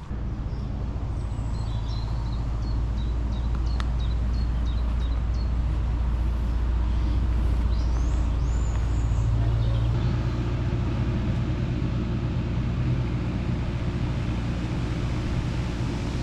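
An engine running steadily with a low rumble; its note shifts about ten seconds in. Small birds chirp over it in the first few seconds and again around eight seconds in.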